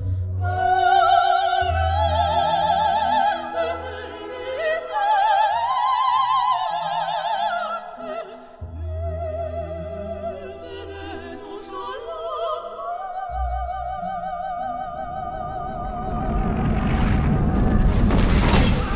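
Operatic singing with wide vibrato and long held notes over orchestral accompaniment. Near the end a loud rushing noise swells up under the music.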